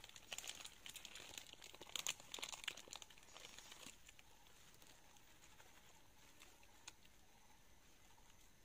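Thin plastic bag crinkling faintly in the hand while rice is eaten from it, with a run of small crackles in the first four seconds that then fades to only the odd crackle.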